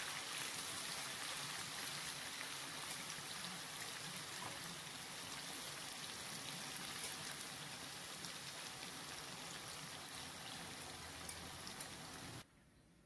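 Small chicken pieces frying in a pan of really hot oil: a steady crackling sizzle that cuts off suddenly near the end.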